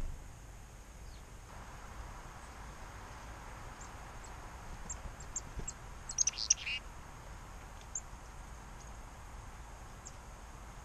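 Chickadee calling: scattered short, high chirps, with a quick burst of louder notes about six seconds in.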